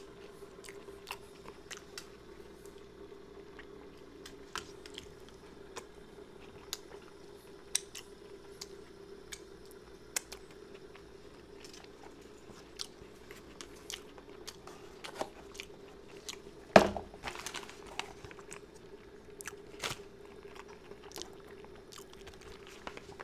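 A person chewing and biting food close to the microphone, with scattered small mouth clicks and one louder thump about seventeen seconds in.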